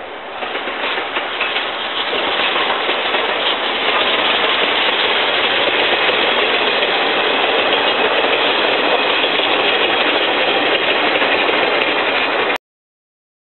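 Double-headed steam train of two tank locomotives, JNR C11 and C12, passing: a loud rush of locomotive exhaust and wheels on rails that grows louder over the first few seconds, holds steady, and cuts off suddenly near the end.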